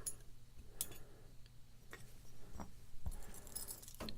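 Scattered light metallic clicks and ticks from a padlock and its small parts being handled, about half a dozen spaced irregularly.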